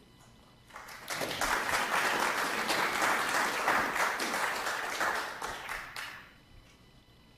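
Audience applauding: a clatter of many hands that swells about a second in and dies away around six seconds in.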